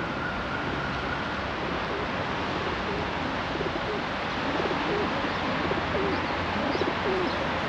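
Pigeons cooing, a run of short, low, wavering coos from about two and a half seconds in, over a steady hiss of city street noise.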